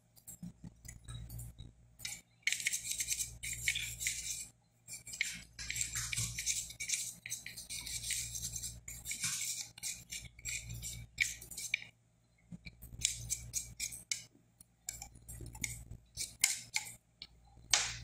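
Toothbrush bristles scrubbing a cordless phone circuit board to clean it, in runs of rapid scratchy back-and-forth strokes broken by brief pauses.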